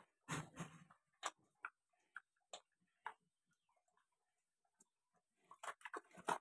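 A sow eating wet feed from a trough: irregular wet smacks and slurping clicks, bunched about half a second in and again near the end.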